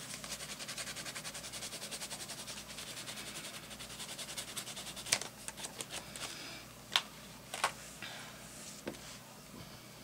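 A red watercolor crayon scribbled rapidly back and forth on journal paper, about eight soft scratchy strokes a second, stopping about halfway through. A few separate light clicks and taps follow.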